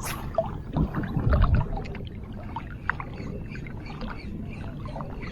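Water splashing and lapping at the shoreline, with a louder low surge about a second in and scattered light clicks and knocks.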